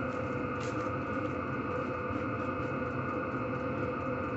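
Diesel air heater running steadily in its shutdown cycle: the combustion-air fan blowing, with a steady hum, and faint regular ticks from the fuel pump.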